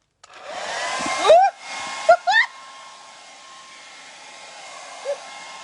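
Hair dryer, on its cool setting, switched on about a third of a second in and blowing steadily with a whine into a stretchy hair-curler attachment. A few short squeaky sounds rising in pitch come in the first two and a half seconds, after which the blowing settles quieter.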